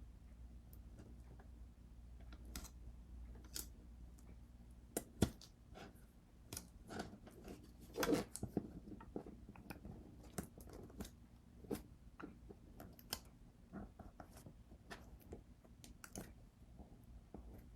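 Irregular crackling, crinkling and small clicks of hands working copper foil tape around glass pieces, over a faint steady low hum.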